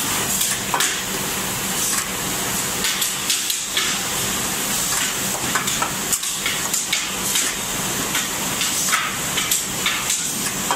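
One-shot chocolate depositing machine running: a steady hiss with irregular clacks and knocks from the depositor and moulds.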